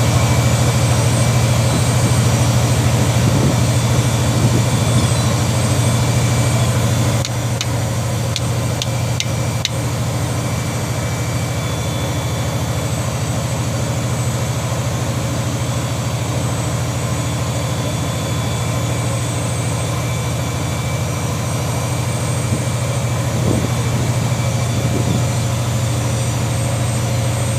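A fishing boat's engine drones steadily, with a little drop in level about seven seconds in. A few light clicks come just after the drop.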